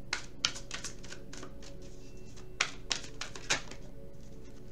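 Tarot cards being shuffled and handled: a run of irregular clicks and card snaps, the loudest two a little past halfway.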